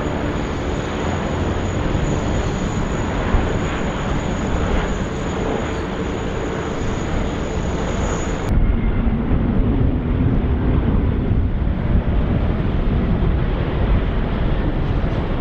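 Jet airliner engines during landing: a steady rush of jet noise with a thin high whine from the Boeing 747 as it touches down. About halfway through it cuts abruptly to a louder, deeper rumble from a second landing airliner.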